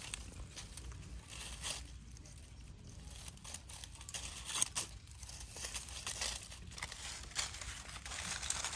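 Dry leaf litter and twigs rustling and crackling as they are trodden on and brushed through, in short irregular crackles over a low steady rumble.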